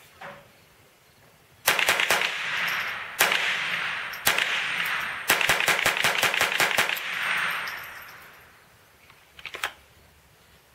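Ruger SR-22 semi-automatic .22 LR rifle fired rapidly: a quick burst of about five shots, two single shots a second apart, then a fast string of about ten, the echo dying away after it. A few light clicks near the end as the magazine is handled.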